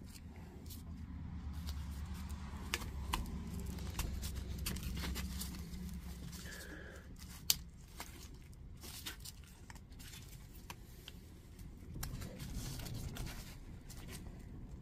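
Scraping, scuffing and scattered clicks as 18650 lithium-ion cells are pushed into the tight plastic cell holder of a Bosch 18V battery pack. There is a short squeak a little over six seconds in and one sharp click about seven and a half seconds in.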